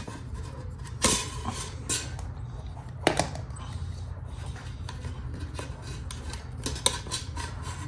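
Plastic parts of a pet water fountain being pulled apart and handled: irregular clicks, knocks and clatters, thickest in the second half, over a low steady hum.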